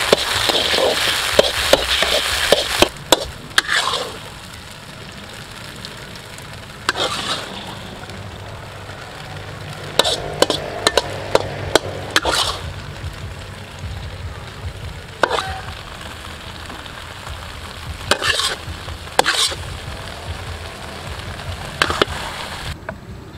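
Thick sauce sizzling in a hot metal wok as a metal spatula scrapes and stirs it with rapid clicks. After about four seconds the sizzle dies down, and a metal ladle clinks and scrapes against the wok and a steel bowl every few seconds as the sauce is scooped out.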